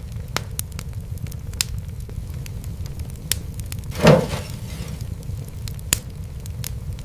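Fireplace fire crackling: a steady low rumble of flame with scattered sharp pops, and one louder pop trailing off in a brief hiss about four seconds in.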